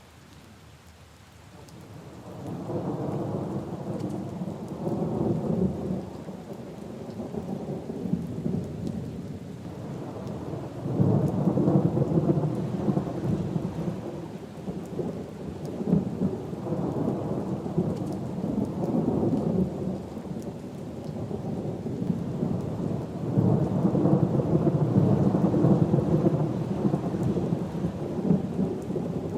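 Rolling thunder rumbling in several long swells, the first starting about two seconds in, over steady rain falling on puddles and leaves.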